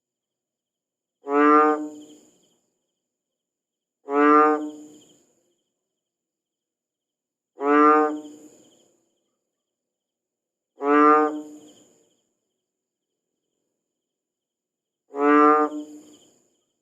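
Frog call sound effect played five times at irregular intervals of roughly three to four seconds, each a pitched croak of about a second that starts sharply and fades, with silence between calls.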